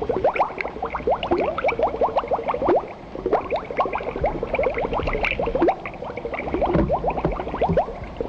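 River water churning and gurgling in a rapid run of short bubbling splashes as a heavy truck wades through a ford.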